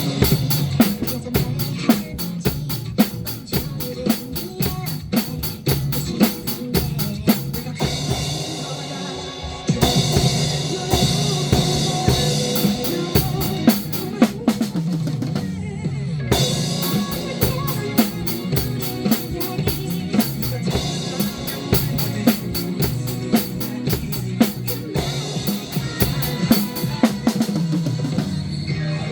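Drum kit played in a steady groove, with cymbal strokes, bass drum and snare over backing music. The drumming drops out briefly about eight seconds in and again about sixteen seconds in.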